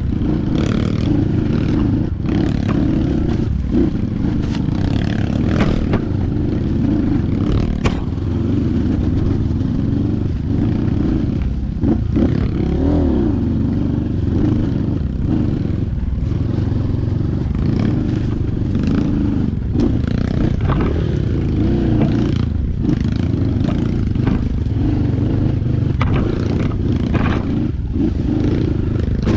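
Trail motorcycle engine running continuously on the move, its pitch rising and falling as the throttle is worked.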